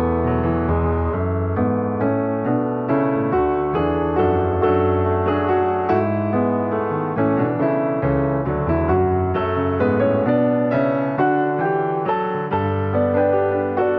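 Piano music: a steady flow of notes over held bass notes.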